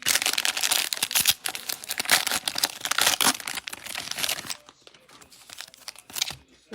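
Plastic wrapping of trading-card packs crinkling and tearing as the packs are worked out of their packaging, dense for about four and a half seconds, then quieter with a brief burst of crinkling near the end.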